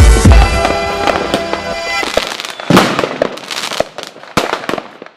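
Fireworks bangs and crackles over music with a heavy beat. The music stops about two seconds in, and the scattered pops then thin out and fade away near the end.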